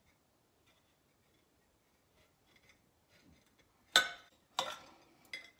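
Steel knife tip scraping a split vanilla bean against a glass plate: three short, sharp clinks of metal on glass in the last two seconds, after a few faint scratches.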